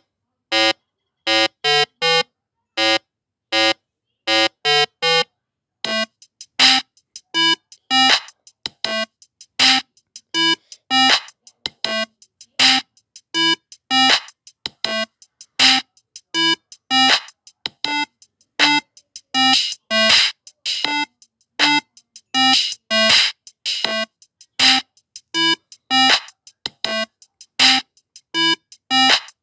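Background synthesizer music: a tune of short, separate notes, sparse at first and fuller and busier from about six seconds in.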